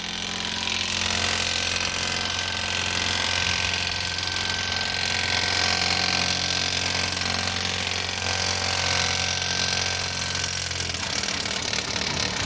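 A workshop machine running steadily: a low hum with a hiss over it. The hum drops out near the end.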